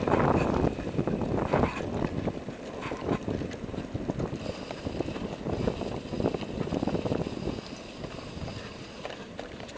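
Wind buffeting an action camera's microphone mounted on a moving bicycle, over a low road rumble with scattered clicks and rattles from the bike. The noise is loudest for the first few seconds, then eases.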